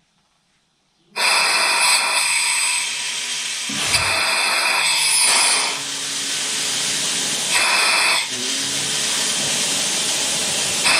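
Compressed air hissing loudly from a hose connection on a homemade log splitter's hydraulic cylinder, the fitting leaking. It starts abruptly about a second in and dips briefly twice, near four and eight seconds.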